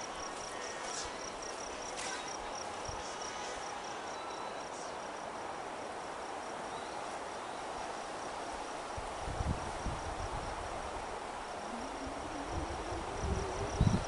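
An insect calling in a fast, steady, high-pitched pulse over a steady outdoor hiss, with low bumps in the last few seconds.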